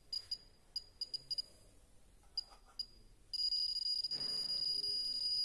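Geiger counter with an SBM-20 tube giving short, irregular high-pitched beeps, one per detected count, then about three seconds in a continuous high-pitched alarm tone sets in as it is held over a radioactive luminous-paint switch and the count rate climbs.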